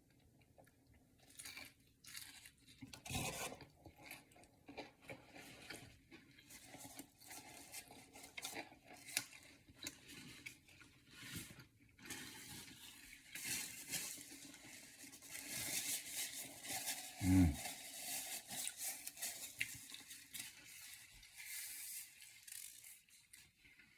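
Crispy fried chicken being torn apart, bitten and chewed close to the microphone: irregular crackly crunching and rustling that gets busier after about halfway, with one louder thump about two-thirds of the way through.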